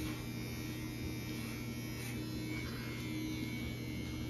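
Electric hair clippers running with a steady buzz while cutting a child's hair.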